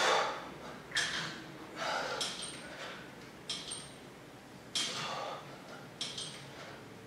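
Hard breathing of a man doing pull-ups: short, sharp breaths in a steady rhythm, about one each second, one with each rep.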